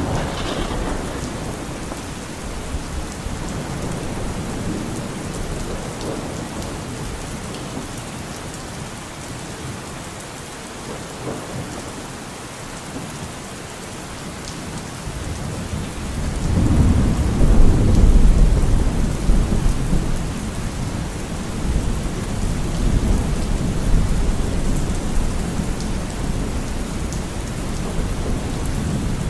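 Steady rain falling. About halfway through, a long low rumble of thunder swells up, peaks and slowly rolls away.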